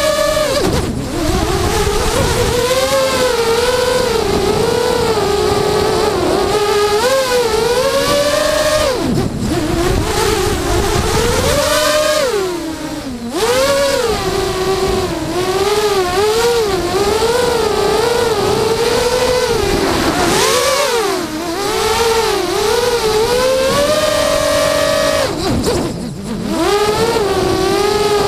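Brushless motors and 5045 bullnose propellers of a QAV210 FPV racing quadcopter on a 3S battery, heard from the onboard camera: a loud whine whose pitch wobbles up and down constantly with throttle. It falls off briefly four times as the throttle is cut and rises again each time.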